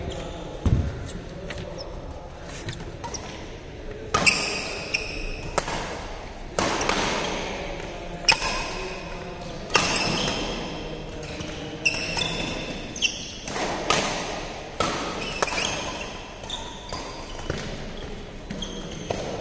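Badminton rally in an echoing hall: sharp racket-on-shuttlecock hits about every one and a half to two seconds, with short high squeaks of shoes on the court mat between them.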